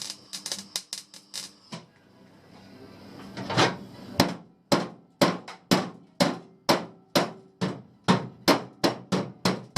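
Hammer blows: a quick, irregular patter of light taps at first, then steady hard strikes about twice a second.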